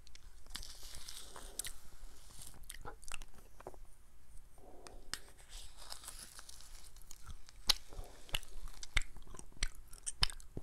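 Someone eating ice cream with a plastic spoon from a paper cup: wet mouth and chewing sounds, with many short sharp clicks from the spoon and lips.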